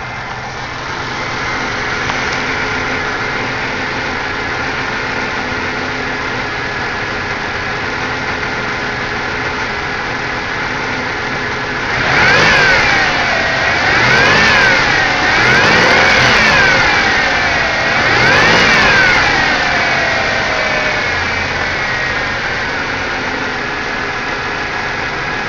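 Buick Regal's supercharged 3800 Series II V6 idling steadily, the rough idle from a broken vacuum line now repaired. About halfway through it is revved four times in quick succession, a high whine climbing and falling with each blip, then it settles back to idle.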